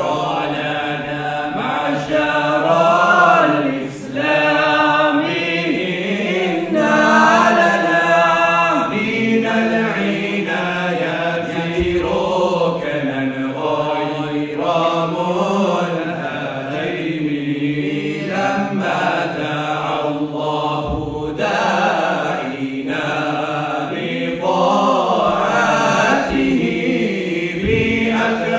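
A male vocal group singing a devotional Mawlid nasheed together, with long melodic lines that rise and fall in pitch and no break.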